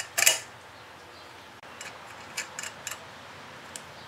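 Small metal clicks and taps of a wrench working a nut on a wire terminal being bolted to a rectifier plate. A cluster of sharp clicks comes right at the start, then scattered fainter ticks.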